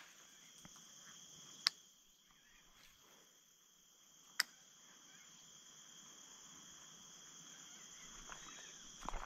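Faint, steady chirring of insects, with two sharp clicks, one near two seconds in and one about four and a half seconds in, and some rustling near the end.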